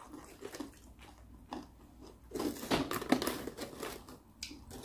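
Crisp homemade potato chips crackling and rustling as hands pick through them in a plastic tub: a few faint ticks at first, then a dense run of crackles from about two seconds in that dies away near the end.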